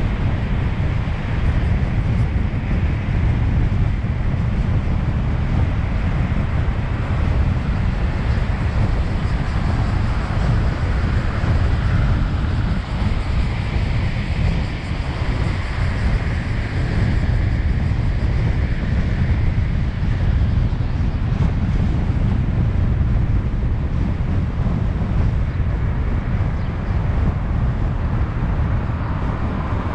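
A car driving along: a steady low rumble of engine and tyre road noise that does not let up.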